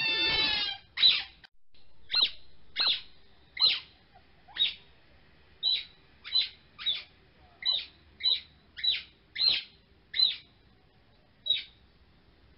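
Bird-like chirping: a longer, fuller call with several layered falling tones right at the start, then about fourteen short, high chirps, each dropping quickly in pitch, spaced roughly half a second to a second apart.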